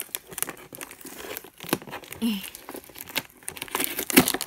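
Packaging of a boxed model horse being handled and pulled at by hand: irregular crinkling, crackling and tearing as the horse is worked free of the box's tight fastenings.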